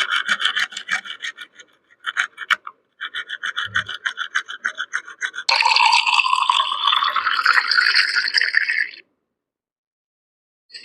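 Toothbrush scrubbing teeth, with quick, even back-and-forth strokes in several short runs. About five seconds in it gives way to a denser, steadier hissing scrub that stops abruptly a few seconds before the end.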